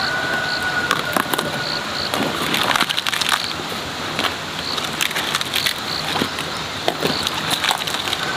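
Crisp snapping and crunching of leafy green stalks being broken off by hand, with the rustle of leaves, in irregular cracks.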